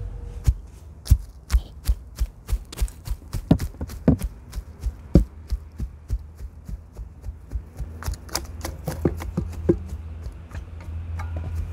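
A metal-tined garden rake scratching and raking through dry grass mulch: a quick series of sharp scraping strokes, about three a second, thinning out after about eight seconds and stopping about ten seconds in.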